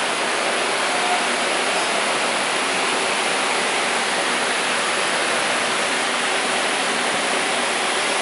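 A steady, even hiss with no rhythm or pitch, unchanging throughout.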